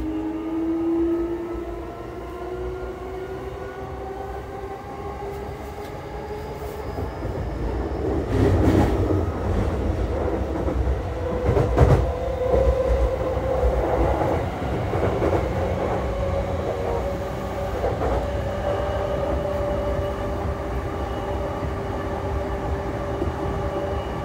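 Mitsubishi IGBT-VVVF inverter and traction motors of a JR E233 series electric train, heard from inside the passenger car: a whine of several tones rising steadily in pitch as the train accelerates, then levelling off. Under it the wheels rumble on the rails, with a couple of knocks about eight and twelve seconds in.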